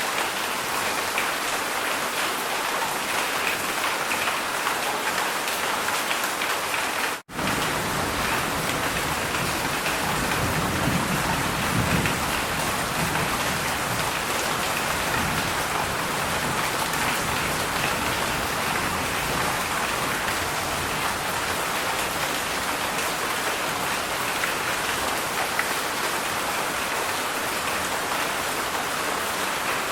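Heavy rain falling steadily, a dense hiss of many drops striking surfaces. The sound cuts out for an instant about seven seconds in, and a low rumble swells under the rain a few seconds later.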